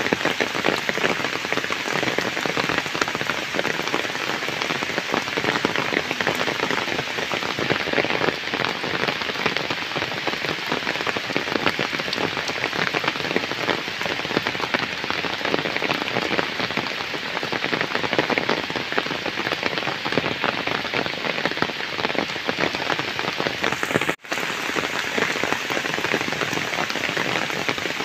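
Heavy rain falling steadily onto flooded ground, puddles and trees: a dense, even patter of drops. It cuts out for an instant near the end, then resumes.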